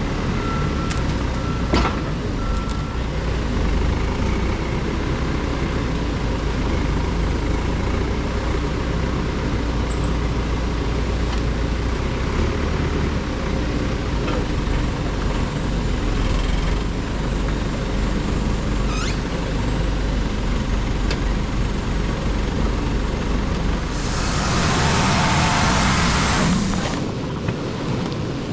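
Tractor engine running steadily, with its reversing alarm beeping for the first few seconds. Near the end there is a loud hiss lasting about three seconds.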